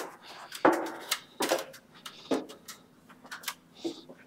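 Irregular knocks and clunks of someone climbing a stepladder while handling a camera, about a dozen sharp hits of uneven strength, over a faint steady hum.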